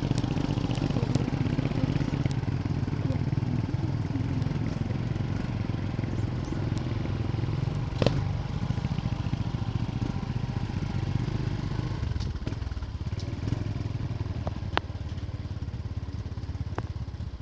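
Motorcycle engine running steadily while riding over a gravel road, with scattered clicks and a sharp knock about eight seconds in. The engine note eases off about four seconds before the end.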